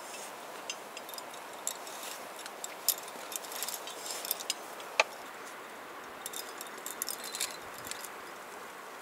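Metal climbing gear — carabiners and quickdraws racked on a harness — clinking and jingling in scattered bursts as a climber moves up rock, with one sharper click about five seconds in.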